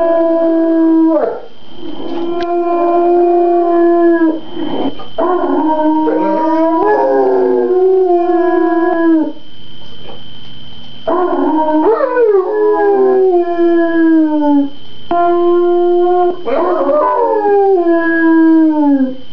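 Bullmastiff howling: a series of long, drawn-out howls lasting several seconds each, with short breaks between them and a longer pause about halfway through. The pitch falls off at the end of some howls.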